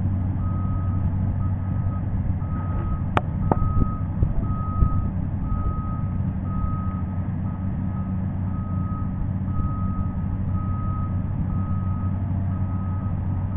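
A heavy machine's backup alarm beeping about once a second over its steady engine, as the machine backs up to take the slack out of the cable hooked to the press box. A sharp click about three seconds in.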